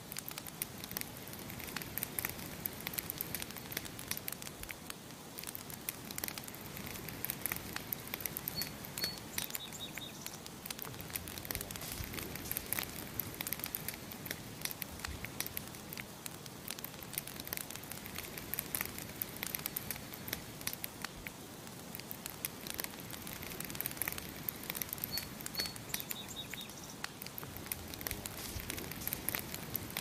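Wood campfire crackling and popping steadily, many small sharp snaps over a soft hiss. A small bird chirps briefly twice, about 9 seconds in and again near 25 seconds, a couple of high notes then a few quicker lower ones.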